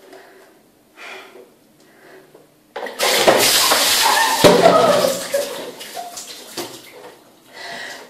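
A bucket of ice water poured over a person's head in a shower stall: a sudden loud splash about three seconds in, water pouring and spattering for about two seconds, then trailing off.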